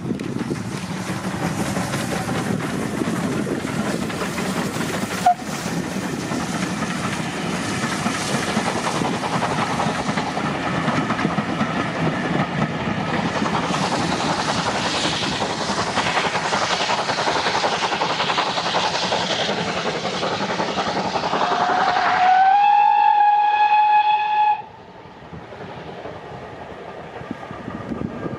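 Steam locomotive hauling coaches working past, mixed with heavy wind noise on the microphone. Near the end one steam whistle blast sweeps quickly up in pitch, holds for about two and a half seconds and cuts off sharply.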